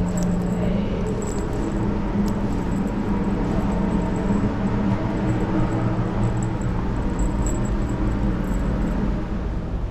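Steady engine drone with a constant low hum and rumble.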